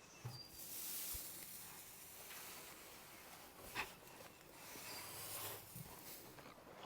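Faint rustling of loose hay being handled, with one light click a little before the middle.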